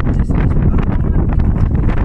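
Loud wind buffeting the microphone: a dense, steady low rumble with constant gusty crackle.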